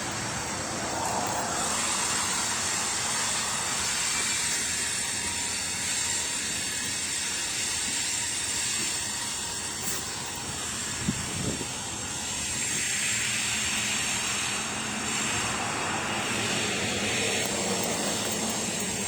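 Steady rushing vehicle noise with faint high steady tones.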